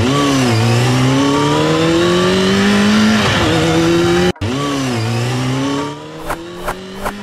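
Motorcycle engine sound effect: a dirt bike pulling away and accelerating, its pitch dipping and then rising steadily. It breaks off about four seconds in and starts a second rising run, which gets quieter toward the end, with a few sharp clicks.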